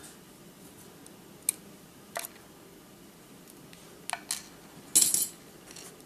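About five short, light clicks and clinks of small metal parts and a pin tray being handled. The loudest comes near the end.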